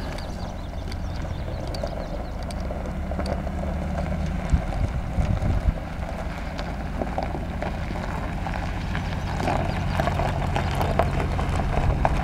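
A 2015 Chevrolet Silverado pickup's V8 engine running steadily as the truck drives slowly across gravel, with tyres crunching on the stones. It grows louder toward the end as the truck draws near.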